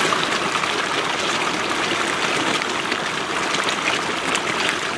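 A dense crowd of tilapia thrashing at the pond surface as they are fed: a steady, dense splashing and churning of water.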